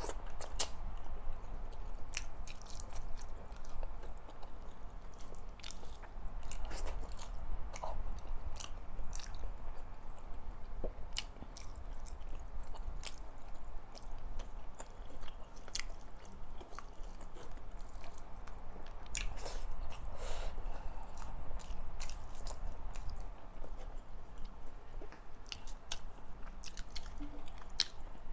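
Close-miked chewing of a mouthful of rice and pinakbet with pork: wet mouth clicks and smacks, with small crunches, several times a second.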